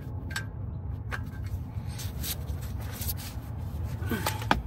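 Light scattered clicks and ticks of metal parts being handled as engine mount bolts are fitted, over a steady low hum.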